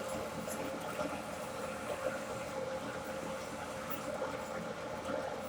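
Metalworking machine running steadily while drilling out a homemade airgun chamber, with a constant hum.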